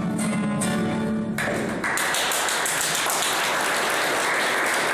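A song with acoustic guitar ends on a held sung note, then an audience claps. The applause starts about a second and a half in and goes on steadily.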